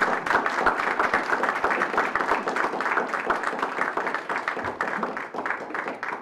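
Small audience applauding: many hands clapping together in a steady patter that starts to thin out near the end.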